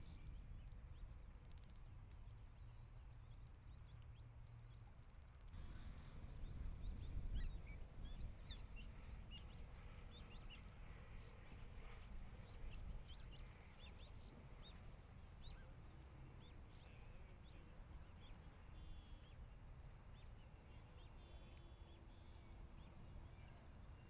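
Faint outdoor ambience: a low rumble with scattered short, high bird chirps, thickest in the middle, and a couple of brief rapid trills near the end.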